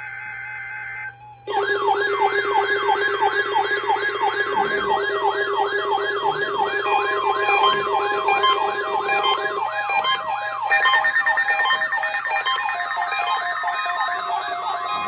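Several weather alert radios sounding their alarms together, set off by the weather radio's weekly test. Their overlapping wailing tones sweep up and down about two to three times a second at different pitches, starting about a second and a half in after a brief steady tone.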